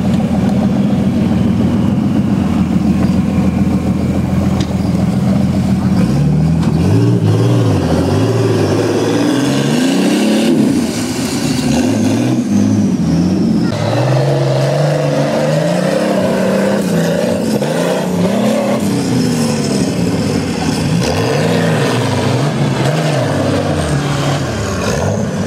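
Engines of modified 4x4 off-road trial vehicles, running at a steady note at first, then revved hard again and again, the pitch rising and falling as they climb mud and rock slopes.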